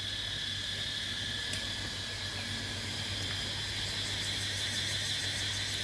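Insects shrilling steadily in a tropical garden, in several high, continuous tones, with a fast pulsing buzz joining in about halfway through. A low steady hum sits underneath.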